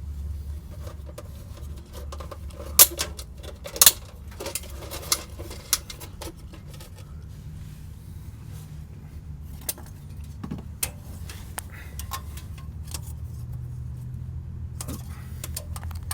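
Scattered metallic clinks and knocks of tools and hands working at a hard-to-reach oil filter under an SUV, two sharp ones the loudest about three and four seconds in, over a steady low hum.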